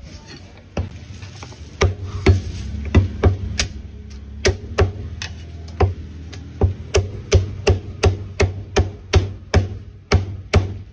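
Cleaver chopping through roast poultry onto a thick round wooden chopping block: a quick, even series of sharp chops, about three a second.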